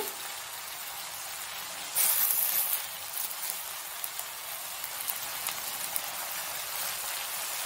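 Drumstick leaves sizzling in a hot oiled pan while water is sprinkled over them by hand, giving a steady hiss with a louder burst of hissing and pattering about two seconds in.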